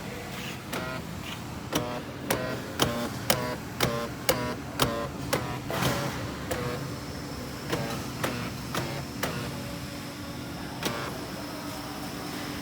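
Hyundai Kona door lock actuators clicking again and again, each click carrying a short buzz, quickest at about two a second early on and then more spaced. The noise comes from the front-left and rear-left door locks, a fault in those actuators. A steady low hum runs underneath.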